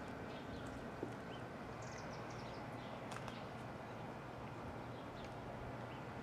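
Faint outdoor ambience: a steady low hum and hiss, with a few short, quick falling chirps about two seconds in and scattered light clicks.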